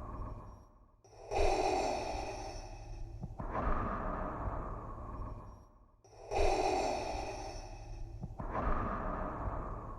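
Darth Vader's respirator breathing sound effect: slow mechanical breaths through the mask, each inhale and exhale about two seconds long, running through two full in-and-out cycles.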